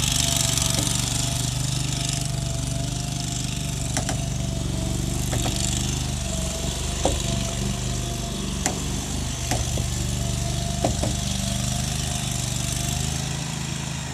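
Small engine of a ride-on shed-moving machine running steadily as it tows a shed, with a faint steady whine above the drone. Several single light clicks or knocks are scattered through it.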